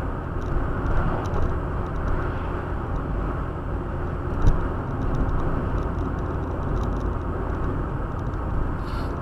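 Steady road and engine noise heard from inside a moving car, with one short knock about four and a half seconds in.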